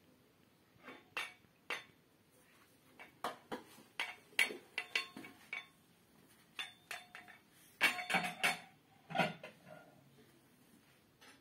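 Tableware clinking: a scattered string of light taps and clinks, some ringing briefly, busiest in the middle and loudest about two thirds of the way through.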